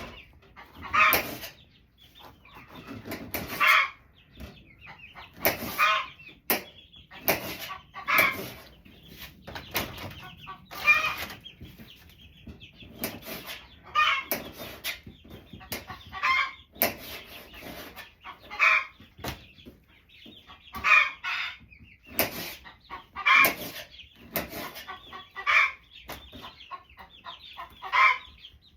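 Chickens clucking, a call about every two to three seconds, with sharp clicks in between.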